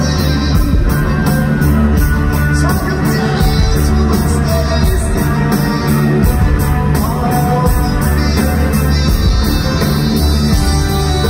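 Live rock band playing through an arena PA: a man singing over electric guitar and drums, with a steady beat.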